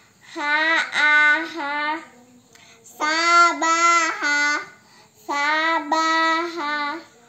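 Young children chanting Arabic letter-syllables aloud from an Iqro Qur'an-reading primer in a sing-song recitation, three drawn-out phrases with short pauses between.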